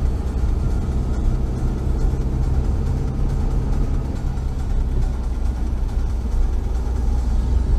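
Steady low rumble of a car driving, heard from inside the cabin: engine and tyre noise on a wet road, with no sudden events.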